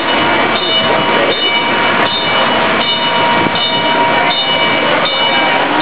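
An alarm sounding on and on: several steady tones held together, pulsing about every three-quarters of a second, over a loud, noisy background.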